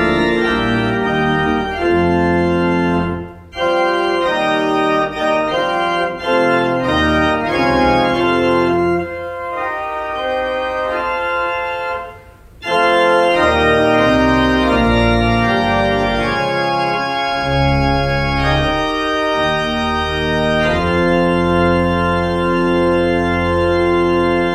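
Organ playing sustained full chords, briefly breaking off twice, then holding one long final chord that cuts off at the end.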